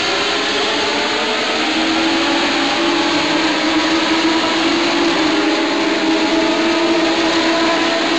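A pack of INEX Legend race cars at speed, their Yamaha motorcycle engines running at high revs together in a dense, layered engine drone. One engine note stands out from about three seconds in.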